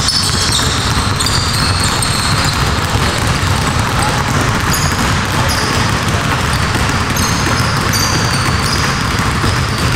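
Several basketballs being dribbled at once on a court, a dense, unbroken run of bounces, with short high squeaks scattered throughout.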